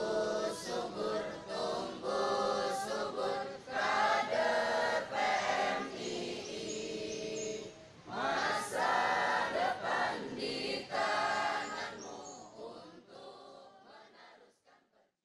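Choir singing, in long sung phrases, fading out over the last few seconds.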